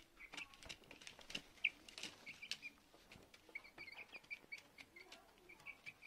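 Chickens pecking grain from a plastic bowl feeder: light, irregular taps of beaks on grain and plastic, with short high peeps, a quick run of them in the second half.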